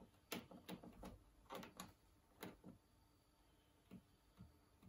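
Faint clicks of the push buttons on an Asko W288 washing machine's control panel, pressed one after another about ten times at an uneven pace.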